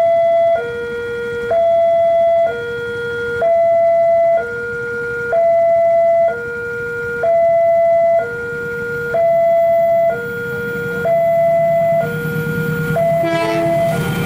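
Electronic level-crossing warning siren sounding two tones in turn, a higher and a lower, each held about a second in a steady repeating cycle. A low rumble from the approaching train grows beneath it in the second half.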